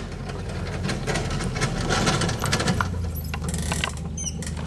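Utility vehicle (a Mule side-by-side) running close by, its engine humming steadily under a busy clinking and rattling of loose parts.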